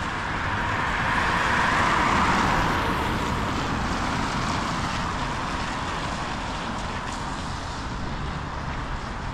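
A car driving past on a wet road, its tyres hissing through the surface water; the hiss swells to its loudest about two seconds in, then fades. Steady low traffic rumble underneath.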